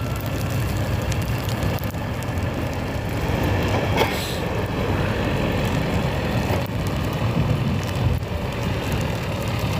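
Heavy snow-clearing vehicles of a maintenance crew running with a steady low engine rumble, with a brief knock about four seconds in.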